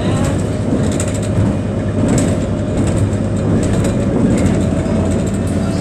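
Inside a moving city bus: the engine and drivetrain run with a steady low rumble, with many small clicks and rattles from the cabin fittings and a thin steady whine.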